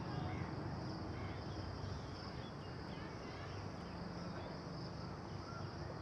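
Steady high-pitched insect drone, with a low rumble underneath and a few faint short chirps.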